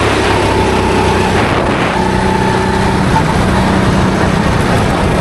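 Rental kart's engine running at fairly steady, moderate revs, heard from onboard, with a small shift in pitch about two seconds in.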